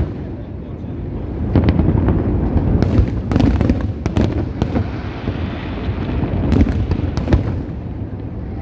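Fireworks display: a continuous low booming from many shells bursting, with several sharp separate bangs and cracks scattered through it.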